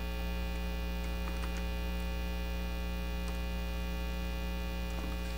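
Steady electrical mains hum with a buzz of many evenly spaced overtones, picked up by the recording's microphone chain. A few faint clicks, keystrokes as code is typed, come about a second in, a little after three seconds and near the end.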